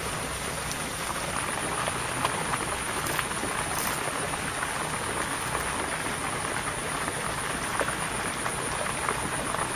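A steady chorus of frogs calling, with a constant high-pitched whine over it.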